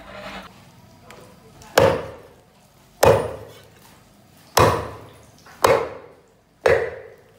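Cleaver chopping turtle meat on a thick wooden chopping block: five hard chops, roughly one a second, each ringing briefly.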